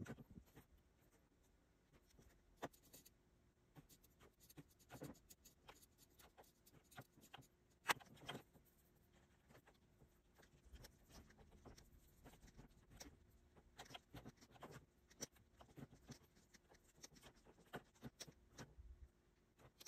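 Faint, irregular taps and scratches of a pen stylus on a Wacom Cintiq pen display, mixed with scattered clicks of mechanical keyboard keys. One sharper click comes about eight seconds in.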